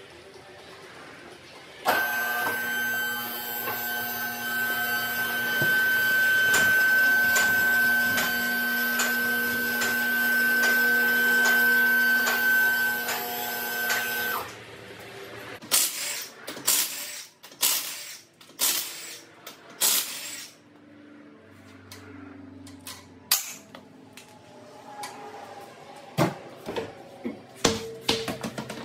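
A two-post car lift's electric hydraulic pump motor starts about two seconds in, runs steadily with a hum and whine while raising the car, and cuts off about halfway through. A few seconds later comes a quick run of sharp, loud bursts from an impact wrench spinning off the wheel's lug nuts, then scattered clicks and clunks.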